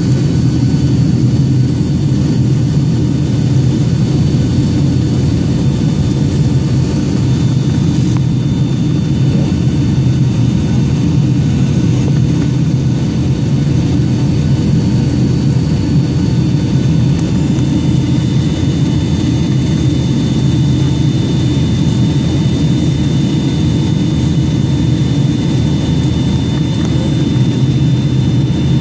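Jet airliner cabin noise heard by a window seat: the steady low rumble of the jet engines and airflow, with a faint high whine held over it, on the descent into Newark.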